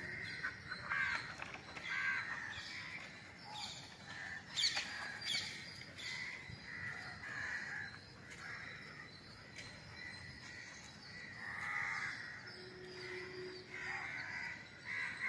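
Scattered short bird calls, repeated at irregular intervals, some of them crow-like caws.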